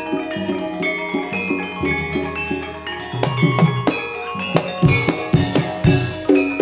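Gamelan music for a jaranan horse dance: ringing metallophone notes over hand-drum strokes, the drumming growing louder and busier about halfway through.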